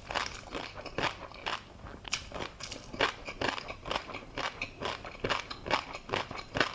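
Close-miked chewing of tobiko (flying fish roe) with a crunchy seafood topping: a quick, irregular run of crunches and sharp little clicks, several a second.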